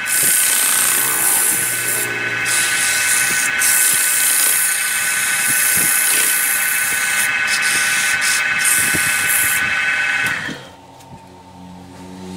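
Woodturning lathe spinning a wooden disc while sandpaper held in a gloved hand hisses against the wood over a steady motor whine; the hiss drops out briefly several times as the paper is lifted. About ten seconds in the lathe is switched off and the sound stops.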